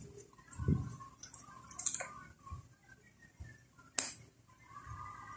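Steel nail clipper at a toenail: a few light clicks, then one sharp snip about four seconds in as the nail is cut.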